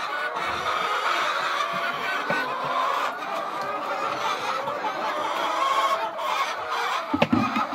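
A flock of hens clucking and calling over one another without a break. A short knock comes near the end.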